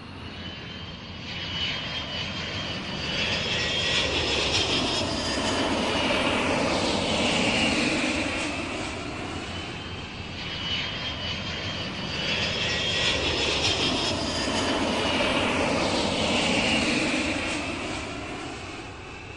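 Airplane engines with a high whine, swelling and fading twice like an aircraft passing overhead.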